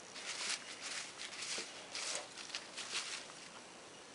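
A hand stirring through a cloth cap full of cut paper slips, the slips rustling in several short bursts.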